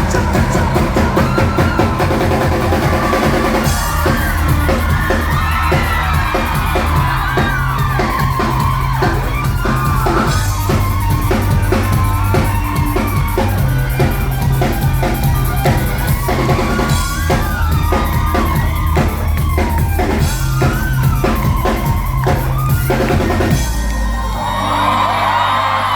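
Loud live rock band playing, with a driving drum kit, heavy bass and a wavering melodic lead line. About 23 seconds in the full band drops back and crowd shouting comes up near the end.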